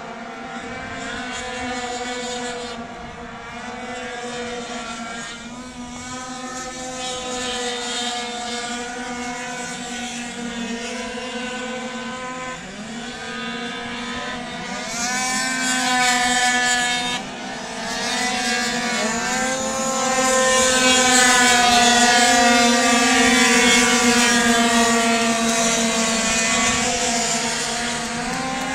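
Several racing scooters' small two-stroke engines whining around the circuit. Their pitches rise one after another as riders accelerate out of corners, and the sound grows louder past the middle as the pack comes closer.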